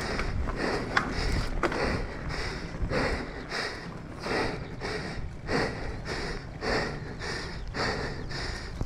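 A mountain biker breathing hard from exertion, about two heavy breaths a second, over the steady low rumble of knobby tyres on a dirt singletrack. Two sharp clicks come from the bike about a second in.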